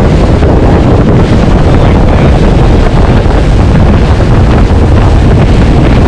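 Loud, steady wind buffeting the microphone aboard a motorboat running at speed, with the rush of the boat's engine and water beneath it.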